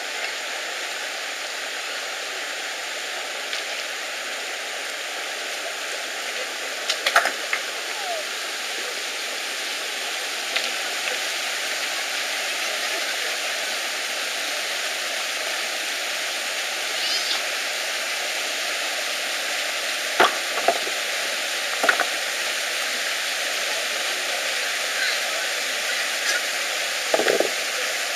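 Rocky forest stream rushing steadily over boulders and small falls. A few short, sharp sounds stand out over it, mostly in the second half.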